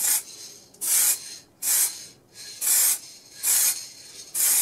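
Aerosol can of matte varnish spraying in short hissing bursts, about six in a row, a little under a second apart.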